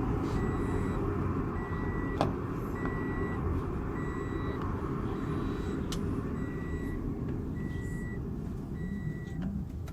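An electronic beeper sounding a short high beep about once a second, over a steady low rumble. A sharp click about two seconds in, the loudest moment, and another near the six-second mark.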